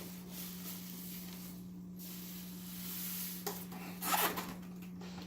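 Rubbing and scraping of a cardboard box being handled, with a louder rustle about four seconds in, over a steady low hum.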